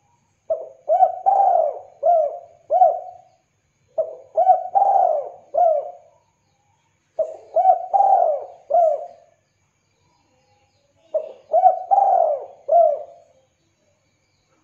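Spotted dove (tekukur) cooing: four phrases a few seconds apart, each a run of four or five short coos with a longer, drawn-out coo in the middle.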